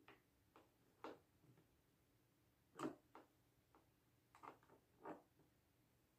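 Faint, scattered clicks and small knocks of a flat-blade screwdriver prying at the plastic top of an Instant Vortex Plus air fryer, working to free a snap tab; the loudest click comes about three seconds in.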